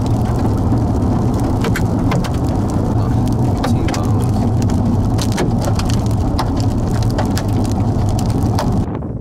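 Hailstones striking a moving vehicle as sharp, irregular clicks over the steady rumble of driving on a hail-covered road. Near the end the sound drops abruptly to a quieter wind noise.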